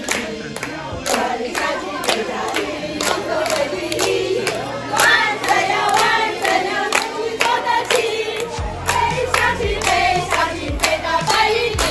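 A group of people singing together while clapping hands in a steady beat, about two to three claps a second.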